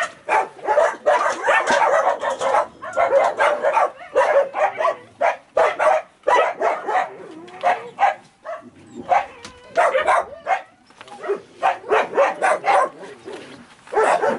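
Dogs barking over and over in rapid short barks, with a few brief pauses.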